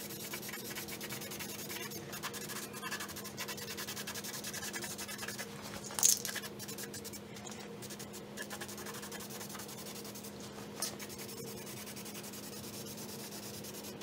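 Aerosol spray-paint can hissing as flat black paint is sprayed, over a steady low hum, with a short, much louder burst of hiss about six seconds in.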